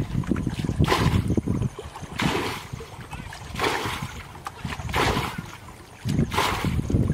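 Muddy water being bailed with a bucket: a scoop and a splash of flung water about five times, one every second and a half or so.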